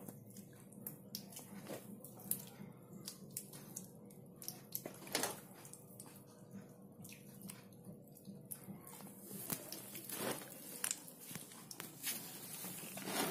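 Bakso meatball dough being squeezed out by hand and spooned into a pot of water: soft squishing and small splashes, with irregular light clicks, the loudest around five and ten seconds in.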